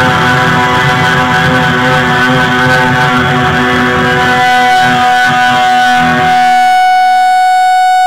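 Electric guitar, a Chinese Les Paul Custom copy with TV Jones pickups, strummed hard through an amplifier with loud, ringing chords. About six seconds in the chords stop and one note is held, sustaining at a steady pitch into a bright feedback tone.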